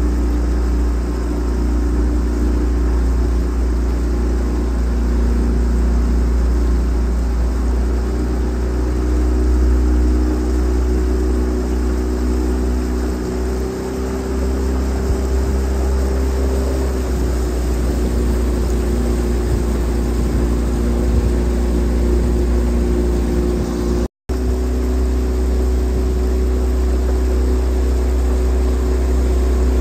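Motorboat engine running steadily at cruising speed: a constant low drone with a few steady engine tones over it, broken by a momentary gap near the end.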